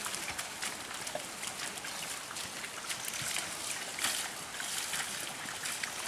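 Muddy water sloshing and splashing as a pair of bullocks drag a wooden plough through a flooded rice paddy, puddling it for transplanting. There are many small irregular splashes from hooves and ploughshare over a steady wash of moving water.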